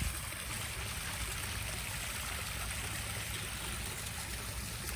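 Small backyard pond waterfall splashing steadily over stacked stones into a koi pond.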